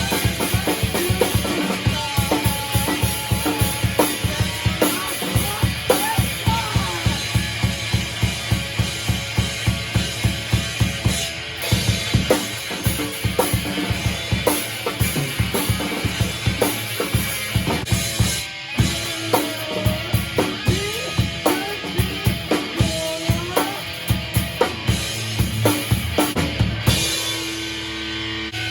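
Rock band playing a song loud: a drum kit keeps a fast, steady beat under electric guitar. Near the end the drums stop and a guitar chord rings on.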